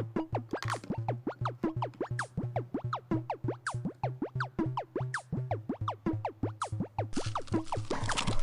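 Background music: a bouncy electronic tune of quick falling plucked notes over a steady pulsing bass. About seven seconds in, a steady hiss-like noise joins it.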